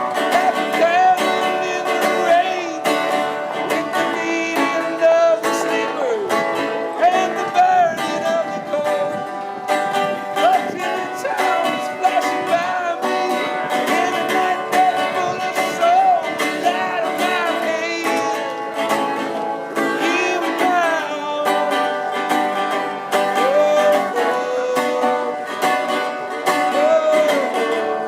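Lively folk music on plucked strings, with fast picking strokes and a wavering, sliding melody line on top.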